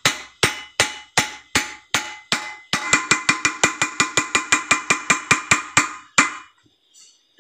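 Hammer blows on the steel tube of a Toyota Veloz front shock absorber, peening its top edge over to close the rebuilt shock around its seal. Each blow rings metallically. The strikes come about two a second, then quicken to about six a second from about three seconds in, and end with one hard blow near the end.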